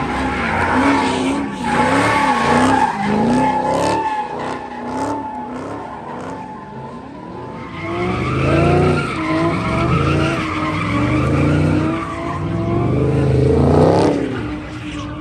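Muscle car engines revving hard, their note swinging up and down about once or twice a second, while the rear tyres spin and screech steadily in burnouts and donuts. A different engine takes over about halfway through and keeps revving in the same rising-and-falling pattern.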